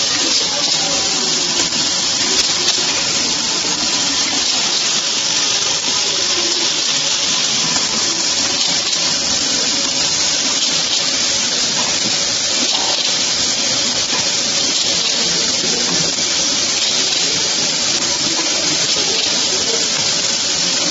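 Automatic bottle pick-fill-seal machine running: a steady, even rushing hiss with a faint steady hum underneath.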